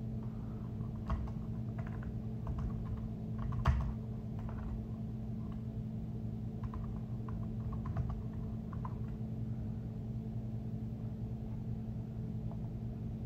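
Light, irregular typing taps, one a little louder a little under four seconds in, over a steady low hum.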